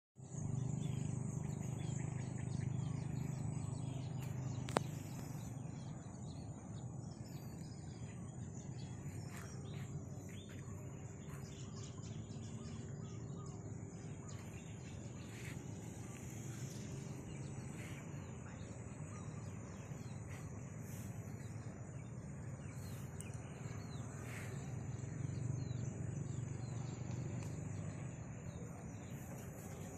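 Outdoor nature ambience: a steady high-pitched insect drone with scattered short bird chirps over a low rumble, and a single click about five seconds in.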